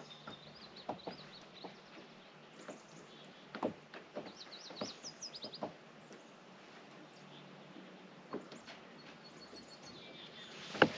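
Songbirds chirping in short quick runs, with scattered light knocks; a sharp knock just before the end is the loudest sound.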